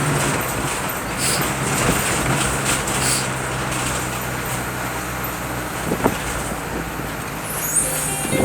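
Motor vehicle driving on the road, a steady engine hum under road noise, with a brief sharp sound about six seconds in.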